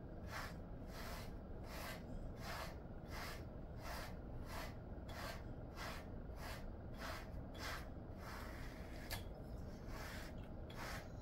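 Grooming brush drawn through a Jindo-mix dog's thick coat in quick repeated strokes, about two a second, each a short scratchy swish. A single sharp click comes about nine seconds in.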